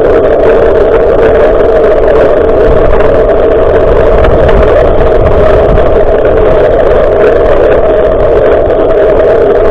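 Steady, loud rumbling noise of wind and road vibration on an action camera's microphone while cycling.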